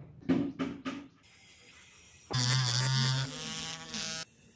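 Three quick knocks, then the small electric motor of a homemade RC truck runs with a whine for about two seconds, changing pitch partway through and cutting off suddenly.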